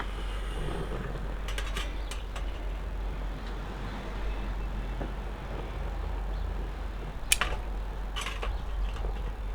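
Wood and fire starters burning in a tiny camp fire stove: a steady low rumble with a few sharp crackles, the loudest about seven seconds in.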